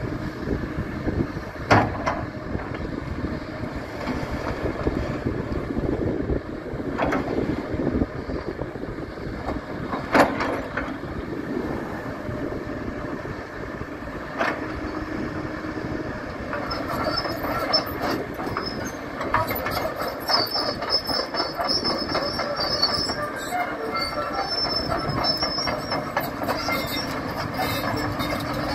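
Case 9040B crawler excavator working: its diesel engine runs steadily under hydraulic load, with several sharp metal clanks in the first half. From a little past halfway, the steel crawler tracks squeal and clatter as the machine moves.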